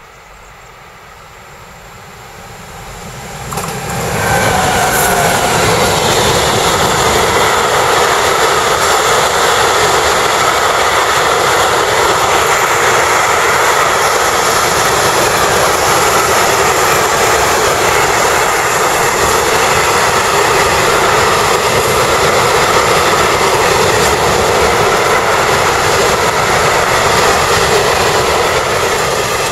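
Freight train of hopper wagons hauled by an electric locomotive approaching and passing at speed: the noise swells over the first four seconds, then a loud, steady rumble and rush of wheels on rails carries on as the long line of wagons goes by.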